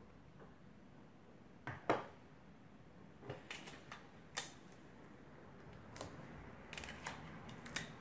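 Small sharp clicks and taps of a screwdriver and loose screws against a laptop's plastic bottom case, as screws are taken out and handled. They come irregularly, the loudest a quick double click about two seconds in, with a cluster of them near the end.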